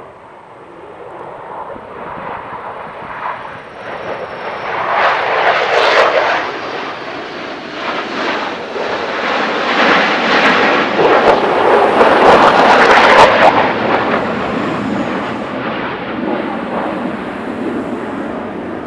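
F-16 Fighting Falcon jets passing in formation, their jet engine noise swelling to a peak about six seconds in, louder still from about ten to thirteen seconds in, then slowly fading.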